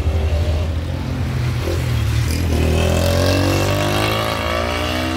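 A motor vehicle's engine running steadily, then rising in pitch from about two and a half seconds in as it speeds up.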